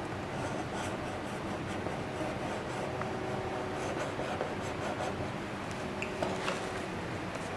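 Faint scratchy rustling with a few light ticks over a steady background hum.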